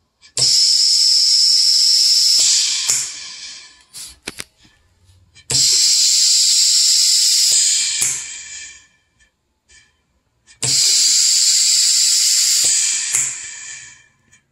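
Pneumatic emergency ventilator prototype cycling: compressed air hisses into the box around a manual resuscitator bag for about two seconds at a time, three breaths about five seconds apart. Each breath opens with a sharp valve click and tails off with a few more clicks as the air vents.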